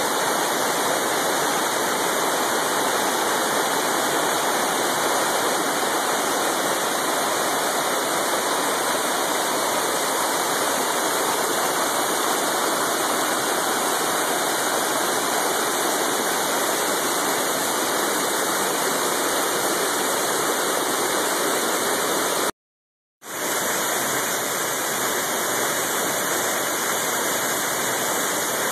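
Waterfall's steady rushing roar of falling water. About three quarters of the way through it cuts out completely for under a second and then resumes.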